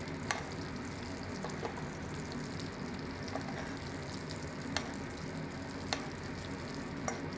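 Hot foaming butter sizzling steadily in a pan while a fish fillet is basted. A few sharp clicks come from the metal basting spoon touching the pan.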